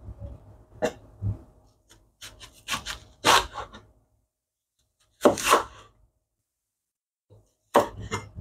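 Chinese cleaver slicing a red onion on a bamboo cutting board, the blade knocking the board with each cut at an irregular pace, with a pause of about two seconds before a last cut near the end.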